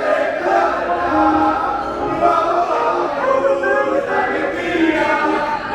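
Karaoke singing: voices singing along to a backing track through a sound system.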